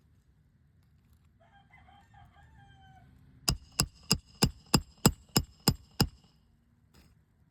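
A rooster crows once in the background. Then a roofing hammer strikes a roof snake nine times in quick succession, about three blows a second, with a metallic ring on each blow, driving a roofing nail back in under a three-tab shingle.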